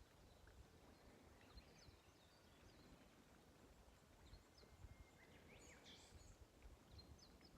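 Faint, scattered bird chirps over a quiet outdoor background, a few at a time, busiest about two-thirds of the way through, with a few soft low thumps.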